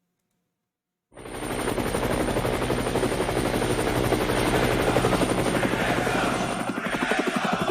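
Near silence, then about a second in the concert recording's audio starts loudly: a fast, even chopping pulse over a steady low drone.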